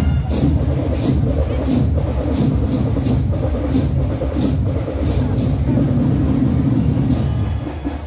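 Loud marching band drumming, with cymbal crashes on a steady beat about one and a half times a second over heavy drums, pausing briefly near the end.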